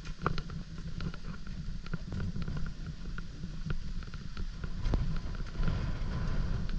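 Wind buffeting the action camera's microphone in a low rumble, with light irregular clicks scattered throughout.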